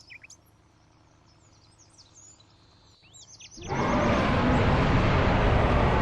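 Small birds chirping faintly in quick, falling high notes. A little past halfway a loud, rough, rushing noise with a deep rumble sets in suddenly and holds steady, covering the chirps.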